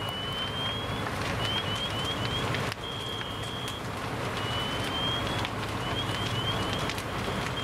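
A fully involved house fire crackling and popping over the low hum of a fire engine's running engine. A high electronic alarm tone cycles through a steady note, a slow rising sweep and four quick rising chirps, repeating about every four and a half seconds.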